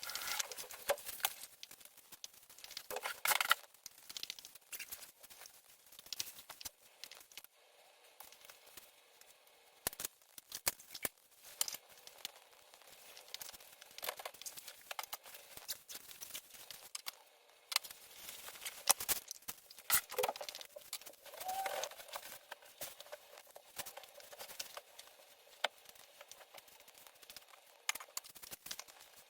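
Faint, irregular small clicks and taps mixed with crinkling rustles, the sound of something being handled.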